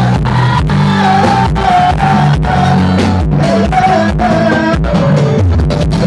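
Loud live band music with a steady beat and singing over it.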